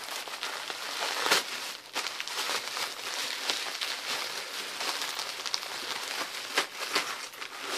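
White wrapping paper crinkling and rustling as it is pulled off an item by hand, with a sharp, loud crackle just over a second in.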